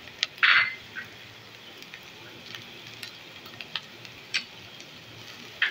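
Scattered light clicks and a brief scrape of a silicone spatula against a nonstick frying pan, over a faint sizzle of chopped vegetables sautéing in a little oil.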